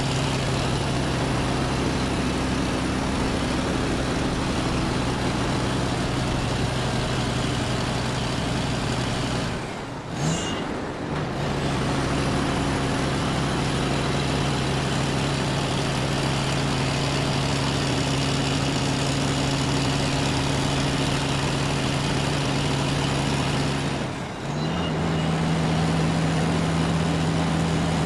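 Heavy vehicle engine running at a steady low hum. It drops out briefly about ten seconds in and again near the end, coming back slightly higher-pitched after the second break.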